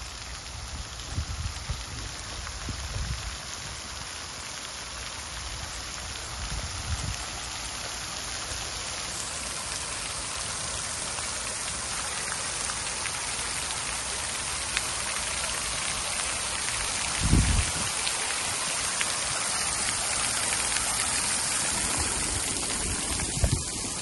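Many vertical water jets of a plaza fountain falling back onto wet paving: a steady splashing hiss like heavy rain that slowly grows louder. A couple of brief low thumps in the second half.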